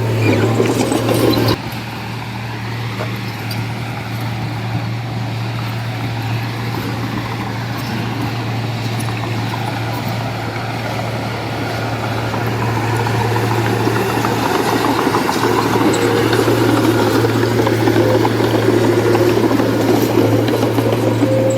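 Heavy diesel engine of earthmoving machinery running steadily with a constant low drone. Its sound drops suddenly about a second and a half in, then gradually builds again over the second half.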